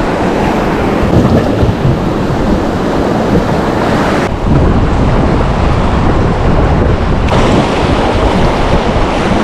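Loud rushing river water on rapids, mixed with wind buffeting the microphone, a dense steady noise whose character shifts abruptly about four and seven seconds in.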